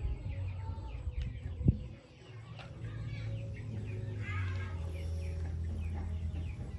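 Chickens calling: a steady stream of many short, falling peeps, over a low rumble. A single sharp knock sounds a little under two seconds in.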